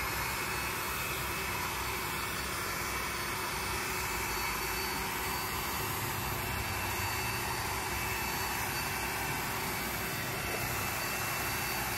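DCK KQU160 electric paddle mixer running steadily under load, its spiral paddle stirring a thick cement-and-sand mortar in a plastic bucket. The motor and gearbox give an even high whine over a churning noise.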